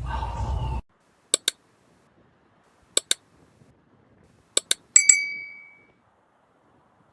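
Sharp clinks in pairs: three pairs about a second and a half apart, then a last pair with a clear ringing ping that fades over about a second. Before them, a noisy clip cuts off abruptly.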